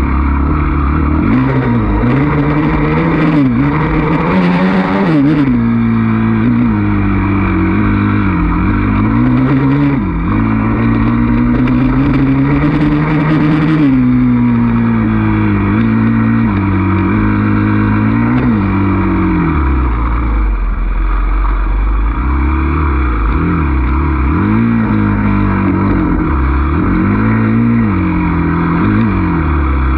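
Dirt bike engine under way off-road, revving up and dropping back again and again as the throttle opens and closes, loud and close.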